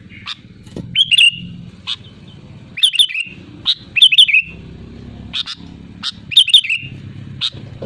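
Sooty-headed bulbul (kutilang) singing a loud, lively lure song: quick groups of two or three sharp whistled notes about once a second, with single sharp notes in between.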